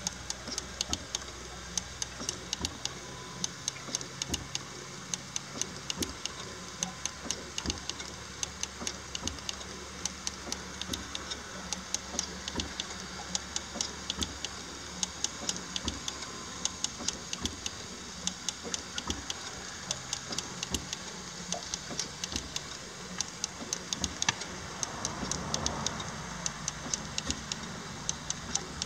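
6-inch scale Samson miniature steam traction engine ticking over slowly: a steady run of light mechanical clicks and knocks, a few a second, over a low hum. A soft rushing sound swells and fades near the end.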